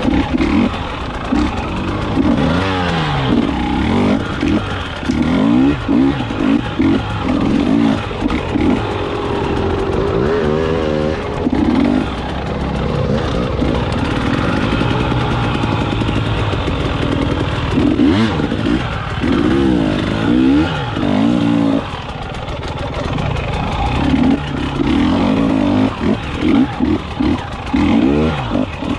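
KTM 300XC dirt bike's two-stroke single-cylinder engine being ridden, revving up and down over and over as the throttle is opened and shut.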